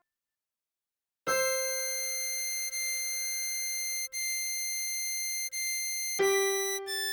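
Diatonic harmonica notes from the melody of a song: about a second of silence, then one long held note of about five seconds, then a lower note starting sharply near the end.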